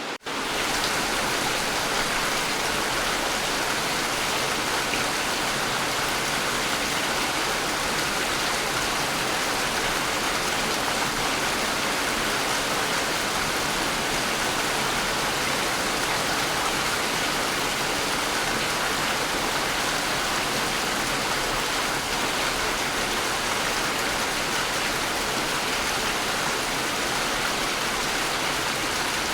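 Steady, even rainfall, a dense hiss of drops falling on surfaces. The sound cuts out for a split second right at the start, then carries on unchanged.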